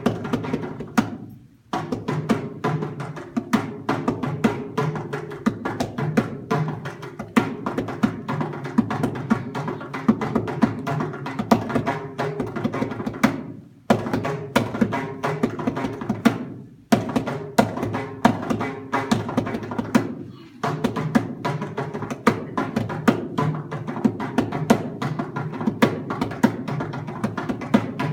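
Mridangam, the South Indian double-headed barrel drum, played solo in fast, continuous strokes, its tuned head ringing at a steady pitch. There are a few brief breaks between phrases.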